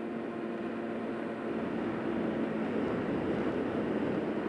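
Yamaha FZ6 motorcycle on the move: a steady engine hum under a rush of wind and road noise on the microphone, which grows louder from about a second and a half in.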